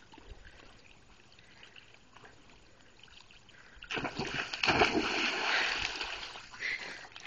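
A dog jumping into a pool: a sudden big splash about four seconds in, then water splashing and sloshing as it paddles, fading near the end.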